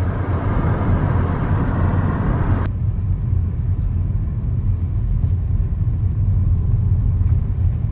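Car driving, heard from inside the cabin: a steady low rumble of road and engine noise. A hiss over the rumble cuts off suddenly almost three seconds in.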